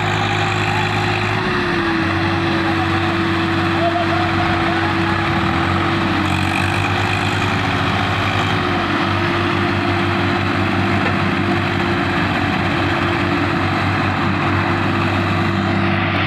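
Diesel engines of Swaraj tractors running steadily under load, pulling a potato-laden trailer that has sunk in a drain crossing. The engine pitch shifts a little a few times.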